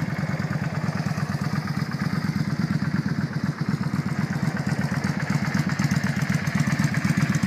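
2002 Yamaha V Star 650 Custom's 649cc carbureted V-twin idling steadily through Vance & Hines slash-cut pipes, an even low beat with no revving.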